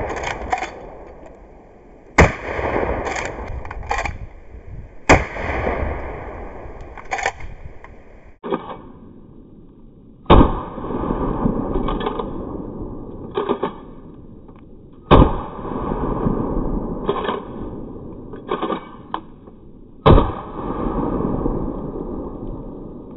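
Norinco Model 87 lever-action 12-gauge shotgun (a Winchester 1887 replica) fired five times, a few seconds apart. Each shot's boom trails off over a couple of seconds. Between the shots come short metallic clacks of the lever being worked to eject the spent shell and chamber the next.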